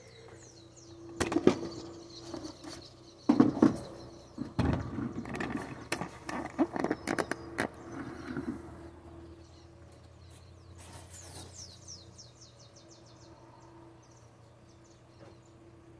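Knocks and clatter of a white plastic bucket being handled and set down on wooden dock boards, loudest in the first half. Later comes a bird's rapid series of chirps.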